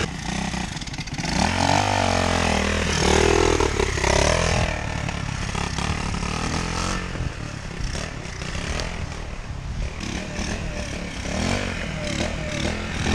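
Pit bike's small single-cylinder engine being ridden hard on a dirt trail, revving up and down with the throttle in the first few seconds, then running more steadily and a little quieter.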